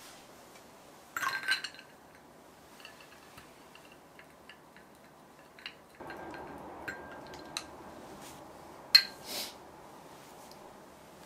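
Kitchenware clinking, a utensil knocking against a glass bowl: a few light clinks about a second in and one sharp clink about nine seconds in, with a soft steady hiss starting about six seconds in.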